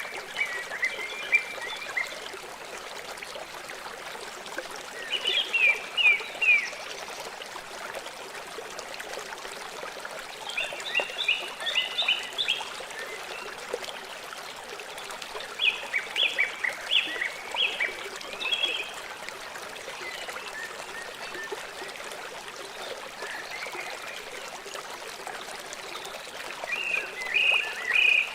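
River water flowing steadily. Over it, a bird calls in short bursts of several quick, high notes, repeating every four to six seconds.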